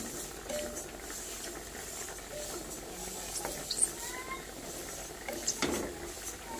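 Sesame seeds dry-roasting in an aluminium kadai, stirred with a wooden spatula: a steady rustling scrape of seeds sliding over the pan, with scattered light ticks and one sharper knock of the spatula near the end.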